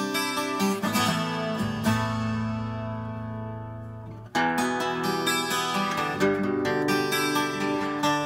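Yamaha FG-350 twelve-string acoustic guitar played in quick picked notes over chords. About two seconds in, a chord is left to ring and fade. The picking starts again just after four seconds.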